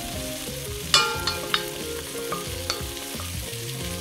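Woodcocks sizzling as they sear in olive oil and duck fat in an enamelled cast-iron casserole, turned with a wooden spoon. A few knocks of the spoon against the pot, the loudest about a second in.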